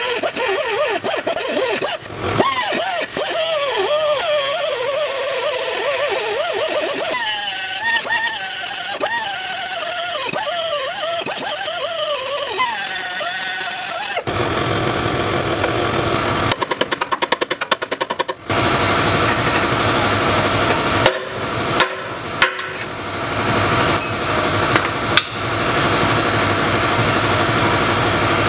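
Pneumatic cut-off tool (Harbor Freight Central Pneumatic) running with a hiss while its wheel cuts into a seized exhaust flange bolt, the pitch of its whine wavering up and down under load. About halfway through the sound turns to a rougher, lower grinding hiss, with a rapid stutter a few seconds later and some sharp clicks near the end.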